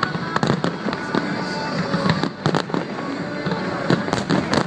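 Fireworks display: aerial shells bursting overhead in repeated sharp bangs at irregular intervals, over a continuous crackle and rumble.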